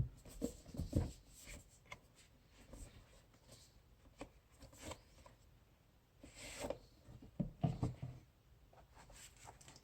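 Scattered soft knocks, clicks and rustling of a watch box and its packaging being handled and opened, with a sharp thump at the very start.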